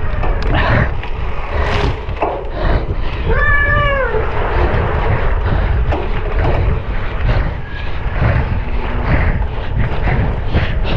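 Wind on the microphone and the rumble and rattle of a cyclocross bike racing over rough ground. About three and a half seconds in, a short high-pitched call rises and falls once, most likely a spectator's shout.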